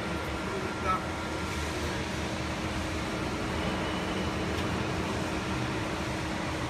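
Steady hum of running machinery, with a faint constant tone, and one short knock about a second in.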